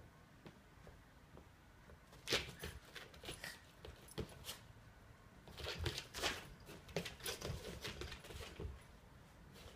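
A cat and a Yorkshire terrier scuffling in play: irregular clicks and rustles in short flurries, starting about two seconds in and busiest in the middle.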